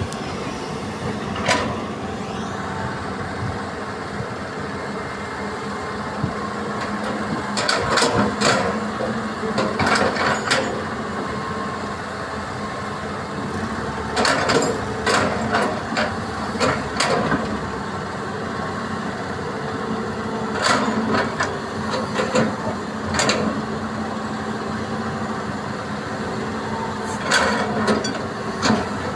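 Hitachi EX200 excavator and dump trucks, their diesel engines running steadily. Bursts of clanking and knocking come every several seconds as soil is loaded.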